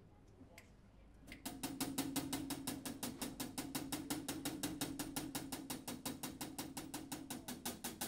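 A live jazz band starts a tune. After a second or so of near quiet with a few faint ticks, the drums begin a fast, even tapping of about eight strokes a second over a steady held low note.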